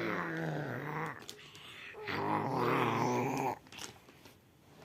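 A one-year-old child making low, rough growling "ghost" noises with its voice: two long growls, the second starting about two seconds in.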